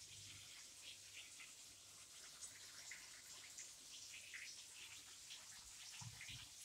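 Near silence: faint room tone with scattered soft ticks and crackles.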